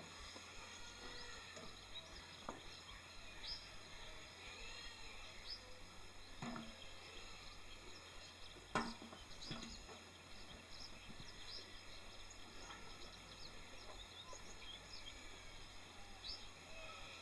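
Faint outdoor background with scattered short bird chirps and a few soft knocks, the loudest about nine seconds in. No engine is running.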